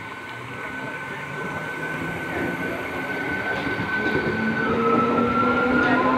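An electric multiple-unit (EMU) suburban train pulls away from a station, its electric traction motors giving a whine that climbs in pitch in steps as it gathers speed. The whine sits over the rumble of the wheels on the rails and grows louder as the motor coaches pass close by.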